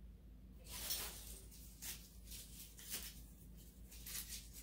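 Faint rustling and scratching of artificial greenery and plastic berry picks being handled and arranged, in four or five short bursts over a steady low hum.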